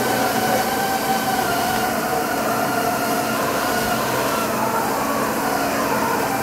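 Awea LP5025YZ bridge-type CNC vertical machining center running: a steady mechanical hum carrying a whine of several tones that waver slightly in pitch.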